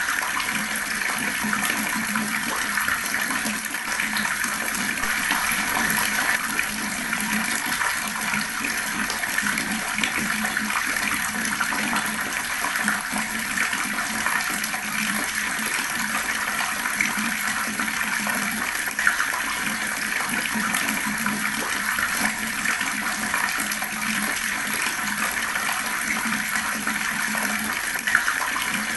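Fast-flowing water running in a steady, unbroken stream.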